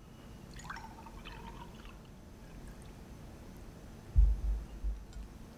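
Milk poured from a glass pitcher into a glass, a light trickling pour in the first couple of seconds. About four seconds in comes a dull low thud, the loudest sound, with a few softer bumps after it, as the pitcher is set down on the cloth-covered table.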